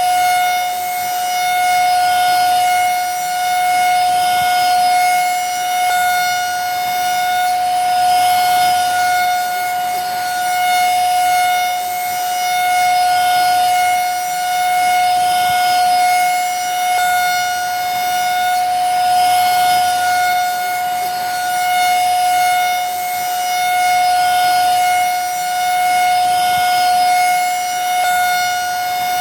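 Vacuum cleaner running steadily: a constant high motor whine over a rush of air, the rush swelling slightly every couple of seconds.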